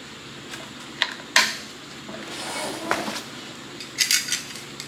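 Sharp metallic clinks and clatter of hand tools and metal parts being handled: single clinks about one second and one and a half seconds in, another near three seconds, and a quick run of rattles around four seconds in.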